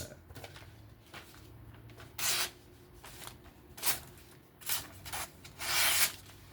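Edge of a freshly freehand-sharpened Spyderco Shaman folding knife being tested. It makes four short rasping strokes as the blade is drawn across a material; the last stroke is the longest.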